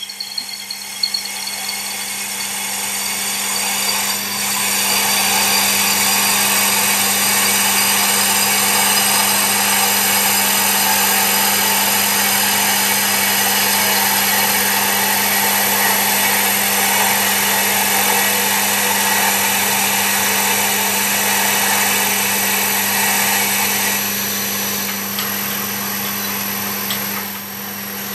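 Wood lathe running while a long drill bit fed from the tailstock bores lengthwise into a spinning walnut log: a steady drilling noise over a constant low motor hum. It grows louder about four seconds in and eases off near the end.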